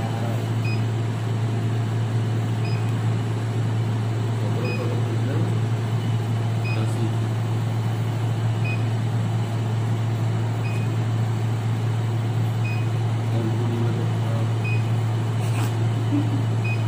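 Steady low electrical hum from training-simulator equipment, with a short high beep every two seconds.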